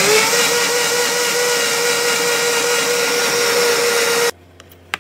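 Countertop blender running on a jar of fruit and water, its motor settling into a steady whine just after spinning up, then switched off abruptly about four seconds in.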